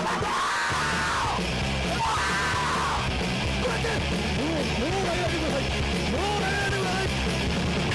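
Loud punk rock with shouted vocals over electric guitars, bass and drums.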